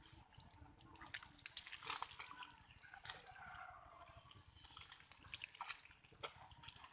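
Small irregular splashes and drips of hands working through shallow muddy water while feeling for fish, with a few faint pitched calls near the middle.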